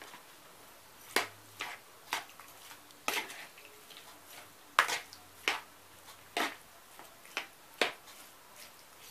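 Metal spoon clicking against a plastic bowl while stirring chopped cooked beef foot and onion, in faint, irregular sharp clicks about once or twice a second.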